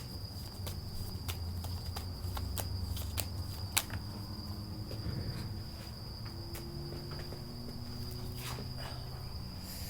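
A steady high-pitched cricket-like trill under scattered light clicks and taps, the sound of tarot or oracle cards being handled and drawn, over a faint low hum.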